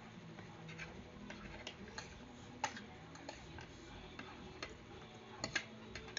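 Eating noises: scattered light clicks and taps at an uneven pace, the sharpest about two and a half seconds in and a quick pair near the end, over a steady low room hum.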